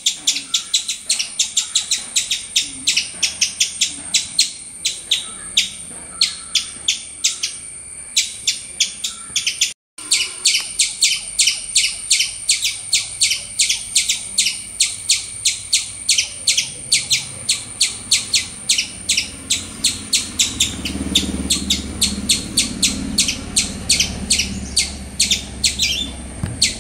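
A fast, steady series of sharp, high chirping calls, about five or six a second, cut off briefly about ten seconds in. A low rumble sits under the chirps in the last few seconds.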